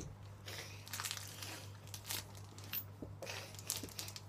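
Faint, irregular rustling and shuffling from someone getting up and moving close to the microphone, with a few soft clicks and a steady low hum underneath.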